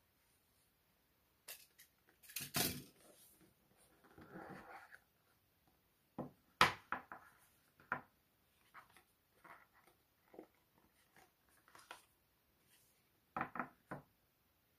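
Paperboard smartphone box being handled on a table: sharp clicks and knocks as it is cut open with a utility knife and the lid and tray are set down, with a short sliding rustle about four seconds in and a cluster of knocks near the end.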